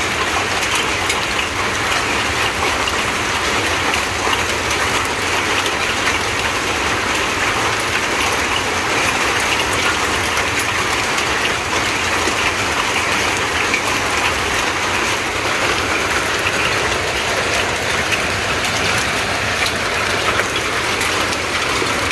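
Hailstorm: heavy rain hissing steadily, with many small sharp ticks of hailstones striking.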